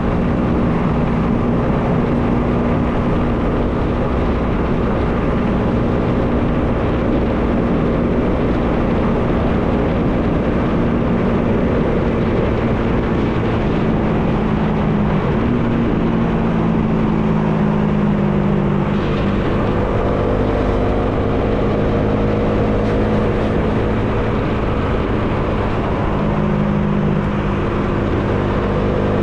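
Bajaj Dominar 400's single-cylinder engine running steadily under heavy wind noise, its pitch stepping a little about fifteen and nineteen seconds in.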